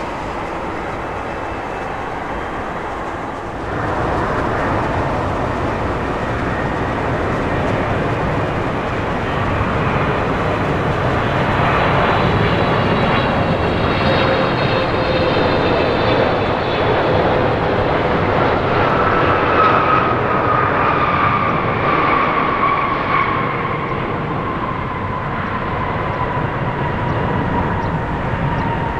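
Jet airliner noise from a Boeing 777-300ER's GE90-115B engines going past: a steady roar that steps up about four seconds in and swells. Later a high engine whine slides slowly down in pitch as the aircraft passes.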